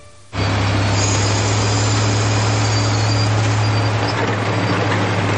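Heavy construction machinery engine running steadily with a deep hum, cutting in abruptly just after the start.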